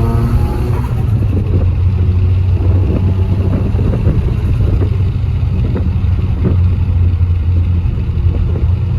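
Car engine and exhaust running at a steady low pitch while the car drives, with a rougher, crackly stretch in the middle.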